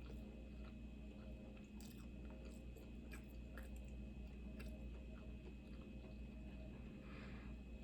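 Faint chewing of food close to the microphone, with scattered small wet mouth clicks, over a steady low hum.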